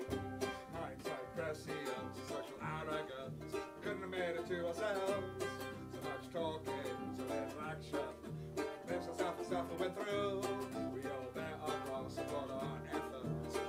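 Live acoustic music: a ukulele strummed steadily over a cello playing low held notes.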